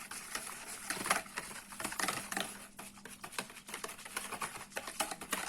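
A utensil stirring kefir with baking soda in a bowl, with quick, irregular clicks and taps against the bowl's sides.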